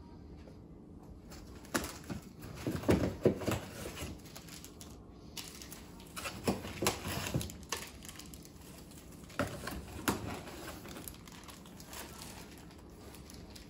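Cardboard and plastic packaging handled at the top of a TV box: rustling, crinkling and sharp clicks and knocks in a few short bursts, the busiest about two to three seconds in, with more around the middle and once more near ten seconds.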